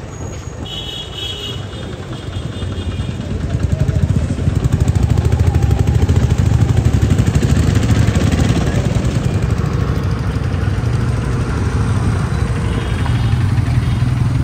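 Engines of slow-moving street traffic running, motorcycles and cars close by. The low rumble grows louder a couple of seconds in and stays strong. A short high-pitched beeping comes near the start.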